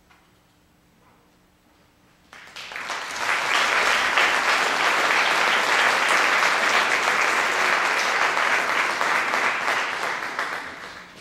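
Audience applause breaking out suddenly about two seconds in after a brief near-quiet pause, holding steady, then dying away near the end.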